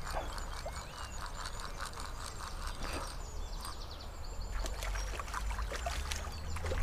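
Zebco 202 spincast reel being cranked against a hooked trout, clicking at an even pace of about four clicks a second. Later the trout splashes at the surface as it is drawn in.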